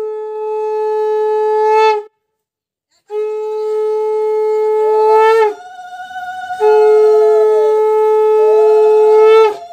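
Conch shell (shankha) blown in three long, steady blasts, each ending with a slight upturn in pitch, with a second of silence after the first. About halfway through, a second, higher and quieter horn-like tone joins, overlapping the last blast.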